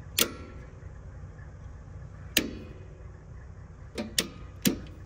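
Heavy machine's engine idling with a steady low rumble. Five sharp clicks sound over it, two of them close together near the end.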